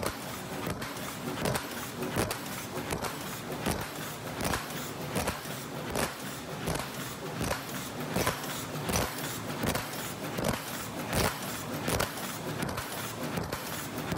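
8 oz paper cup forming machine running in production: a steady mechanical clatter with a sharp clack about every three-quarters of a second, one stroke per cup at its speed of 80 cups a minute.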